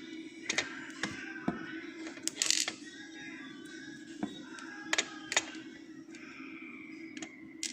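Sharp, irregularly spaced metallic clicks and taps of small parts of an ASSA Oval lock cylinder being handled and set down as the lock is taken apart, with a louder rattle about two and a half seconds in.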